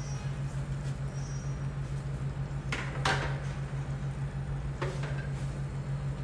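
Pot of chicken tinola broth simmering, with a steady low hum under a faint bubbling hiss. Two brief knocks come about three and five seconds in, the first the louder.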